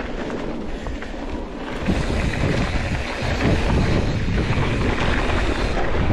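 Wind rushing over the microphone with rumbling tyre and trail noise from a mountain bike riding a dirt flow trail, the bike rattling over small bumps.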